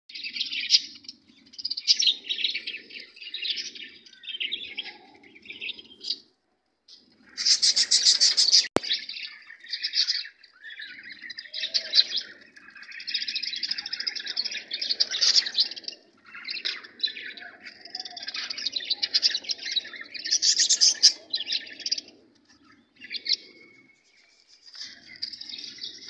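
Many caged budgerigars chattering together: a dense stream of high chirps and warbles in bursts, with a brief lull about six seconds in.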